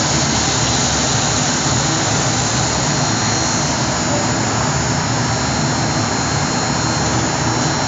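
Steady roar of a high-pressure gas wok burner running at full flame under a steaming wok.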